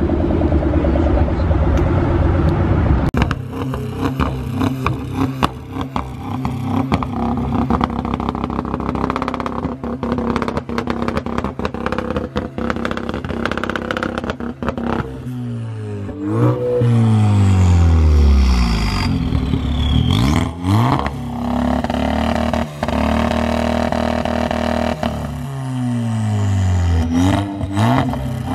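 Modified Ford Focus hatchback's engine idling with a choppy, uneven note, then revved hard three times, each rev sweeping up in pitch and falling back.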